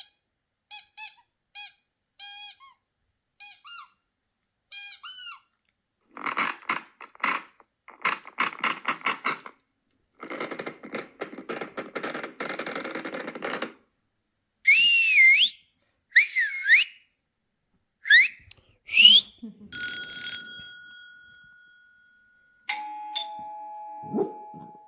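A run of strange electronic sound effects played back: first short chirping beeps, then rapid buzzing trills, then several swooping whistle glides, and near the end long steady beeps.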